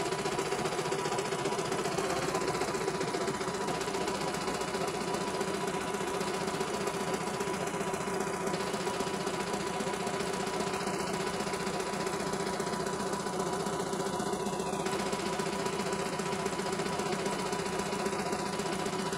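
CNY E900 computerised embroidery machine stitching a design, the needle working steadily as the hoop carries the fabric under it.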